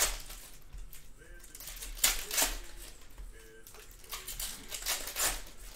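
Foil trading-card pack wrapper crinkling and cards being handled, with a handful of sharp crackles and snaps, the loudest about two seconds in and near the end.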